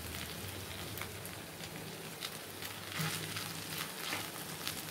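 Faint sizzling of potato masala frying in a pan, with a few soft scrapes and taps of a wooden spoon spreading cooked rice over it.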